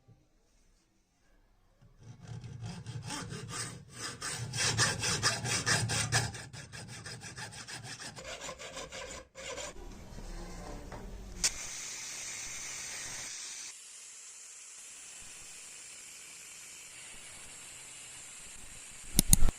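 Quick back-and-forth strokes of hand abrasion, sanding or filing on the old razor's metal parts, rubbing in a steady rhythm and loudest a few seconds in. The strokes stop with a sharp click, and a steady hiss follows for the rest of the time.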